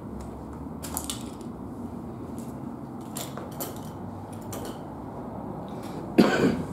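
Handheld walking through a debris-strewn room: a steady low rumble of movement with scattered light clinks and clicks of loose debris, then a much louder, brief noise about six seconds in.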